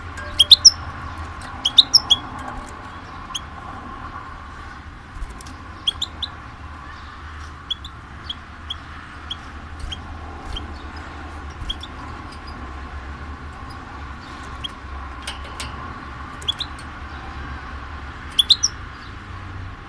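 A small songbird chirping: short, sharp, high chirps, the loudest in quick runs of two or three near the start, about two seconds in and near the end, with softer single chirps between. A steady low hum runs underneath.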